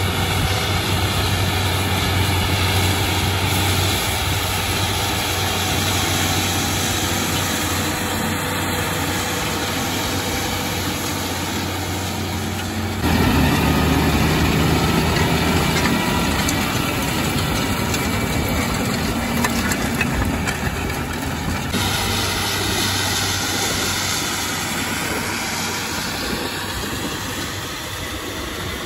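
Claas Challenger 75E crawler tractor's diesel engine running steadily under load while it pulls a Väderstad Top Down cultivator through the soil. The sound comes closer and louder about halfway through.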